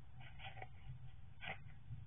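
Great tit moving about in the nest lining inside a wooden nest box: two short scratchy rustles, about half a second and a second and a half in, over a low steady hum.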